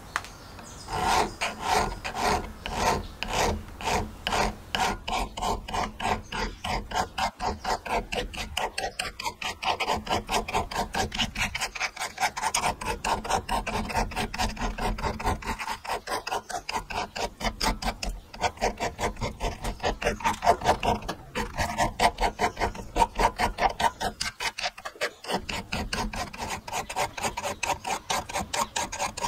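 Thin hand file rasping back and forth on the copper bit of a soldering iron held in a vise, filing the tarnished copper back to bright metal. Steady, rhythmic strokes, about two a second at first, then quicker at about three to four a second.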